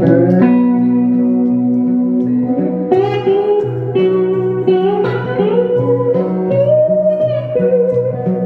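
Live band playing an instrumental break: a lead guitar melody with sliding, bending notes over a steady guitar-and-bass accompaniment.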